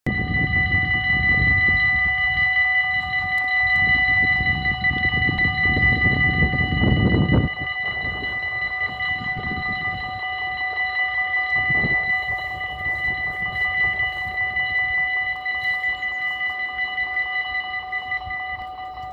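Dutch AHOB level-crossing warning bell ringing steadily while the half-barriers lower, cutting off suddenly near the end once they are down. A low rumble underlies the first seven seconds and stops abruptly.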